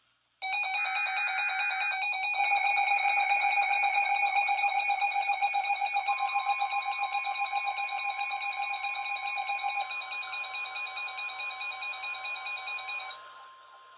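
Weather alert radio alarm: a loud, fast-pulsing electronic beep, opened by a short burst of data screech. A steady single tone joins about six seconds in. These are the alert tones that come before a new NOAA Weather Radio warning. The pulsing beep stops about a second before the end while the steady tone carries on.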